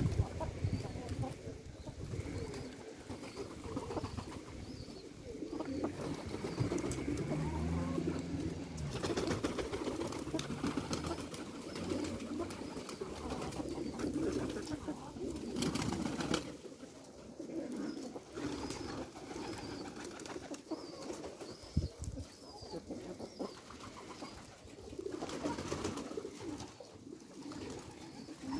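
A flock of domestic pigeons cooing continuously while feeding, many voices overlapping.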